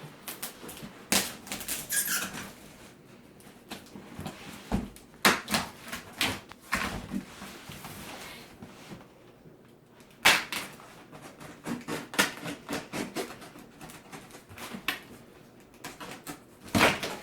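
Irregular knocks, scrapes and rustles with a few sharp clicks as a shipping box is handled and opened.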